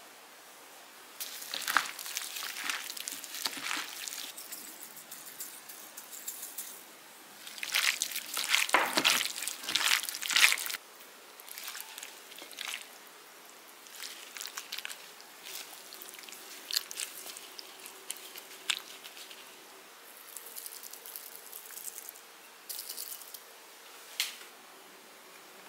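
Julienned radish strips coated in chili seasoning being mixed and handled by hand: wet squishing and crunching with scattered clicks, loudest about eight to ten seconds in.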